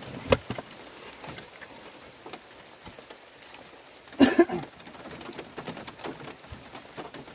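Heavy rain falling, with individual drops tapping close by. About four seconds in there is a short, louder voice-like sound.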